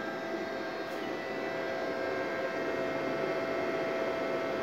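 MaxPower solar inverter running, a steady electrical hum with a thin whine held at one pitch and a fan-like hiss, slightly louder about two seconds in. It has just been switched on and is charging its batteries from the solar panels.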